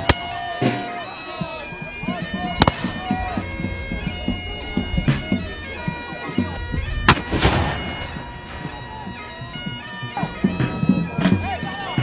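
Bagpipes playing held notes, with a few musket shots cracking through, the loudest about seven seconds in.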